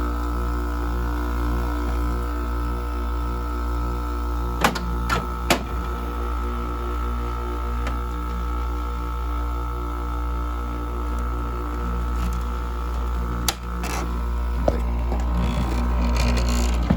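Kenmore 5,000 BTU window air conditioner running with its compressor on: a steady, noisy hum with a deep drone under it. A few sharp clicks come about five seconds in and once more past the middle.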